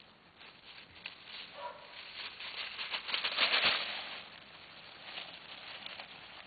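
Dry fallen leaves crunching and rustling under a person's footsteps and a beagle puppy nosing through them, with a low thud at the loudest point about halfway through before the crackle turns softer.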